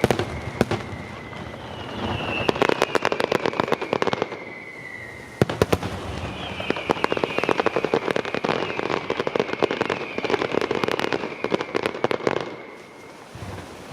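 Aerial fireworks display: dense rapid crackling and popping with a heavy bang about five seconds in, over long whistling tones that slowly fall in pitch, three of them in turn. The barrage thins out near the end.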